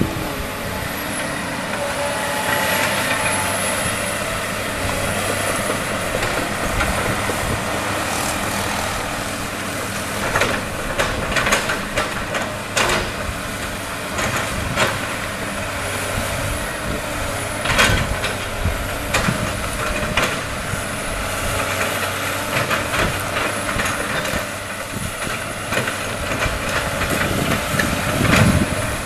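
Komatsu PC200 hydraulic excavator's diesel engine running steadily under working load as it digs and swings. Sharp metallic knocks from the bucket and boom come through now and then, the loudest near the end.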